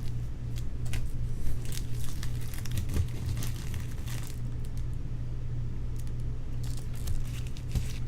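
Foil baseball card pack wrappers crinkling and tearing as packs are opened and handled, in irregular crackles throughout, over a steady low hum.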